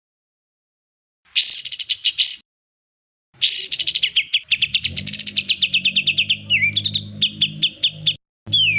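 Songbird song in rapid-fire bursts of sharp, high chirps, with strings of quick repeated notes dropping in pitch, broken off abruptly by dead silences. The longest burst, about 3 to 8 seconds in, has a low hum under it.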